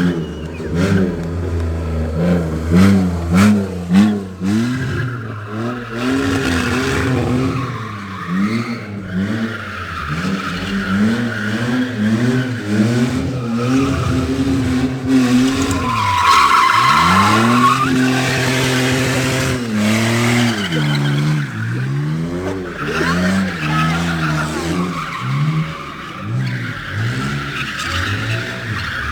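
BMW car drifting: the engine revs up and down over and over while the tyres squeal. A few sharp cracks come in the first four seconds, and about halfway through the revs drop right down and climb again.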